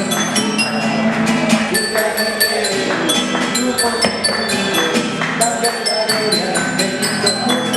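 A pasacalle melody played on a homemade instrument of tuned tubes, struck notes ringing out one after another in quick succession.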